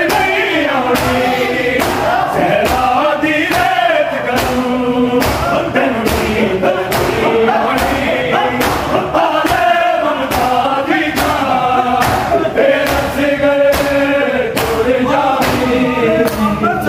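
A crowd of men chanting a noha lament in unison, over a steady rhythm of sharp slaps as open palms strike bare chests in matam.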